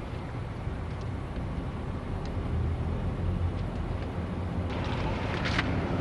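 Steady low rumble of a car's engine and tyres heard from inside the cabin while driving, with a few light clicks and rattles about five seconds in.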